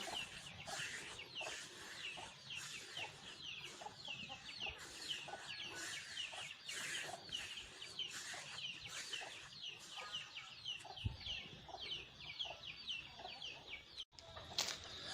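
Chickens peeping and clucking: a rapid run of short, high, falling peeps, about three a second, with scattered lower clucks.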